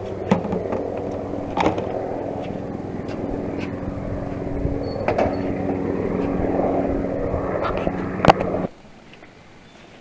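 An engine idling steadily, with several sharp clicks and knocks over it; the engine sound cuts off abruptly near the end, leaving a much quieter background.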